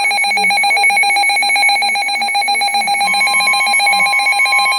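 Emergency Alert System alert tones opening a severe thunderstorm warning: a loud, rapidly pulsing electronic tone, joined about three seconds in by a second steady tone a little higher in pitch.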